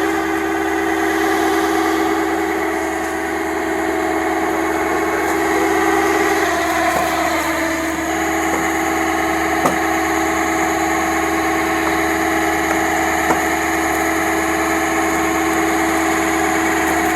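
Tow truck engine running steadily with a constant whine, and a couple of light clicks.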